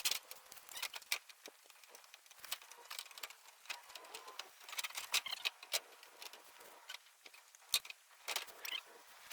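Irregular light clicks and taps, with a sharper knock near the end.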